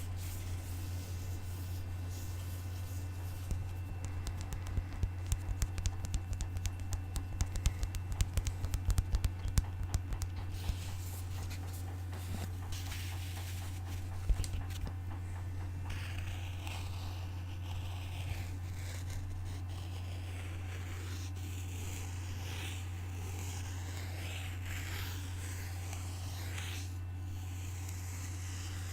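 ASMR tapping and scratching on an object: a run of quick, light taps in the first part, then slower scratching and rubbing strokes later on, over a steady low electrical hum.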